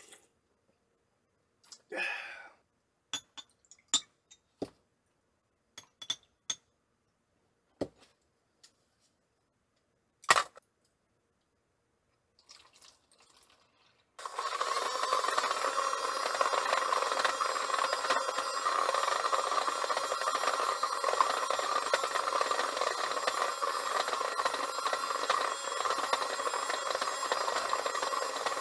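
Toy mini washing machine's small electric motor running on 4 volts, starting suddenly about halfway through and then going on with a steady buzzing whir. Before it, a few scattered clinks and light knocks of a glass being handled.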